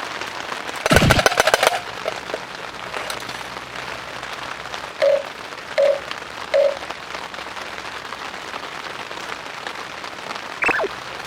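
Steady rain, with a loud rapid run of clicks and cracks about a second in, three short evenly spaced tones around the middle, and a brief chirp-like sound near the end.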